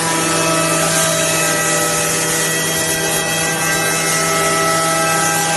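High-speed spindle of a CNC point-to-point drilling and milling machine cutting a wood furniture panel. It is a steady machine hum with several whining tones over a continuous hiss of cutting.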